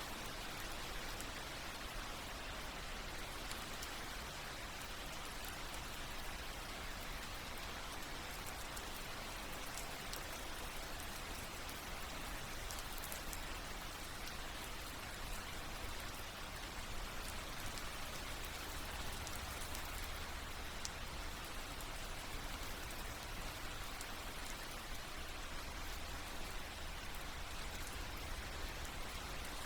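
Steady rain falling, an even hiss with the patter of individual drops landing on a surface.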